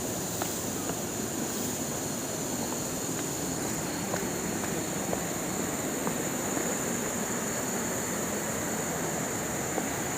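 Steady rushing of river water from a nearby waterfall, with a constant high-pitched drone over it and a few faint ticks.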